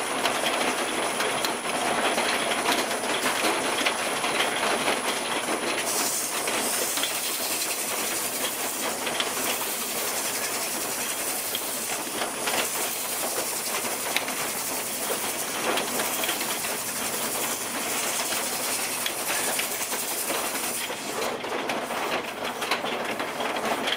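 Wood lathe running with a square-cornered bowl blank spinning, while 400-grit abrasive paper is held against the inside of the turning bowl. The machine noise is steady with a thin high whine, and the lathe winds down and stops near the end.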